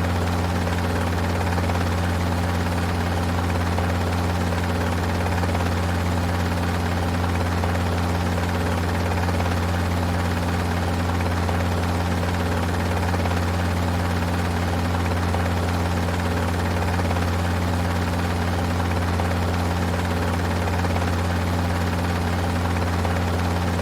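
Helicopter heard from inside the cabin: a steady, unchanging engine and rotor drone dominated by a strong low hum, with a constant rushing noise above it.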